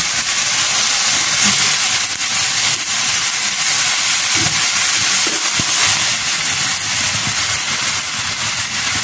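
Steady sizzling of stir-fry filling frying in hot oil in a non-stick frying pan: minced chicken, then shredded cabbage and carrot.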